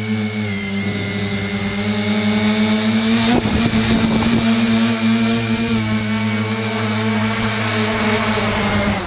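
Bambucopter Bluebird tricopter's electric motors and propellers whining steadily in flight, heard from on board, with a rougher stretch about three seconds in. Near the end the whine cuts off suddenly as the motors stop after landing on the lawn.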